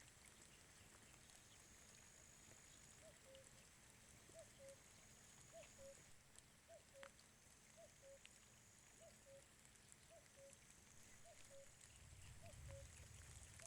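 Faint common cuckoo calling, a falling two-note 'cu-coo' repeated about once a second, starting about three seconds in, over light rain pattering and dripping.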